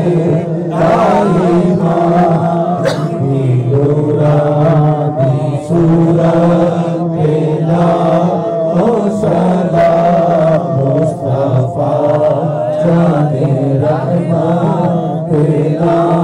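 Male voices chanting an Urdu devotional naat/salaam in long, drawn-out held notes, with no break.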